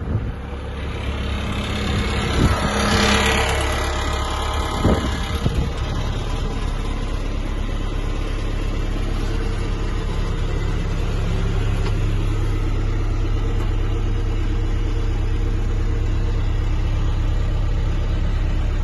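Volvo BL70 backhoe loader's diesel engine running steadily, with a brief rise and fall in revs and a couple of knocks in the first few seconds.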